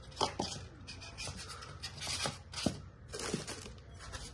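Tea set being handled in its polystyrene foam packing tray: foam and plastic wrap scraping and rustling, with a handful of sharp clicks.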